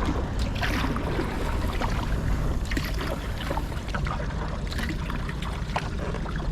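Kayak paddle dipping and splashing in the water, with water dripping and trickling between strokes. A steady low rumble of wind on the microphone runs under it.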